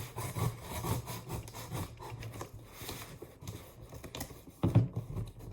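Cardboard keyboard box being handled and opened: a string of irregular rubbing and scraping sounds, with a louder bump near the end.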